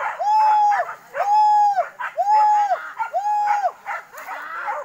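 Hunting dog baying at a wild boar it is holding at bay: about five drawn-out barks, roughly one a second, each held at the same pitch, with fainter barks between them.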